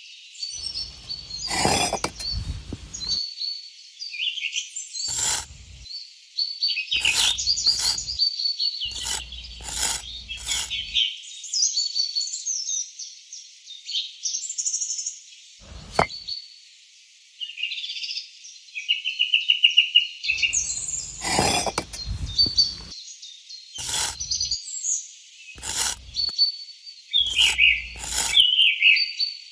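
Small birds chirping and twittering without a break, with a scattering of short, sharp knocks and clicks.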